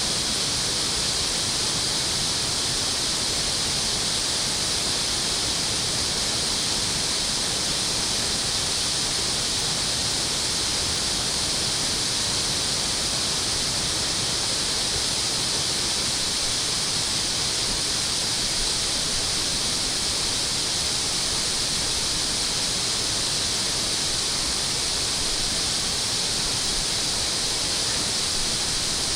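Water rushing steadily through a dam's drain outlet: an even, unbroken hiss.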